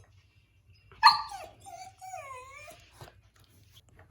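Husky puppy crying: a sharp yip about a second in, then a long wavering whine-howl that dips in pitch and rises again.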